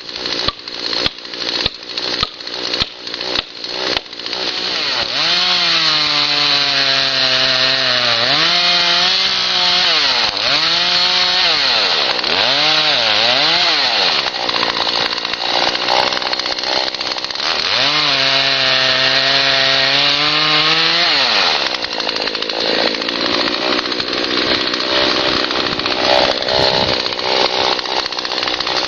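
A quick run of sharp knocks, about three a second, then a two-stroke chainsaw at full throttle cutting into a tree. Its pitch sags and recovers again and again as the chain bites, before it settles into steadier running.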